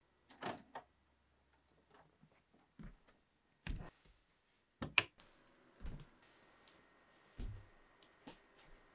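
A bedroom door being opened, with a latch click, followed by slow, soft footsteps on the floor: a string of separate quiet knocks and thuds about a second apart.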